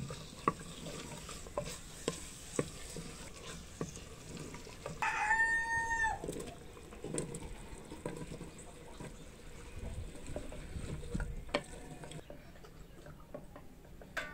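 A wooden spoon stirs and knocks against a clay cooking pot, with scattered clicks and thuds as potato pieces go in. About five seconds in, a rooster crows once, the loudest sound.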